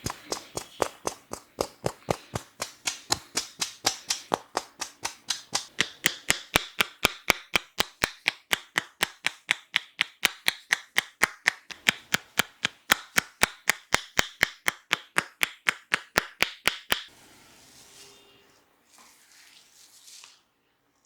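A masseur's hands striking rhythmically in percussive tapotement massage, sharp slaps and claps at about five a second. The strikes stop suddenly near the end and give way to soft rubbing.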